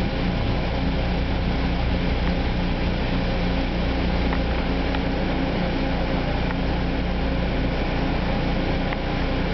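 Steady low hum and rumble inside a bi-level commuter rail car as the train creeps to a stop at a station platform, with a few faint clicks.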